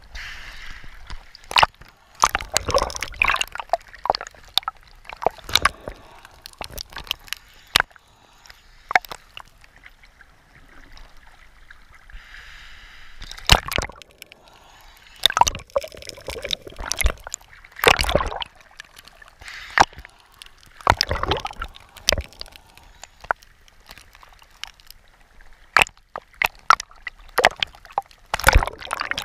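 Sea water sloshing and gurgling around a camera as it dips in and out at the surface, muffled while under. Irregular splashes and sharp clicks run throughout.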